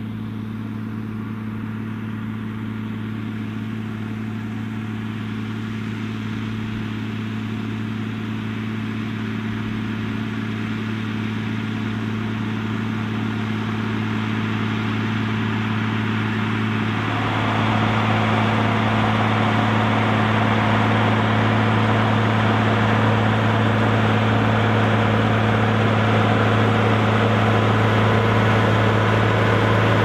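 John Deere 3650 tractor's six-cylinder diesel engine working hard under the load of a plough, a steady drone that grows louder as the tractor approaches, with a jump in level a little past halfway.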